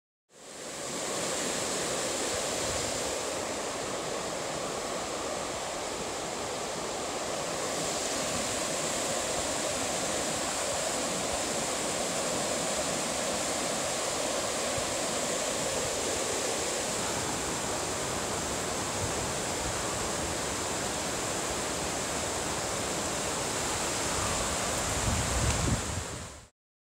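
Mountain creek rushing over rocks and small cascades: a steady rush of white water. A brief low rumble comes in near the end.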